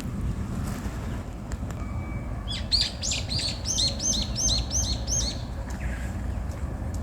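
A small songbird singing a quick run of repeated, downward-sweeping high notes, starting a little before halfway and lasting about three seconds, over a steady low rumble.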